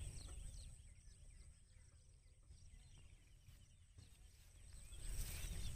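Faint rural ambience: scattered small bird chirps over a low rumble, getting louder about five seconds in.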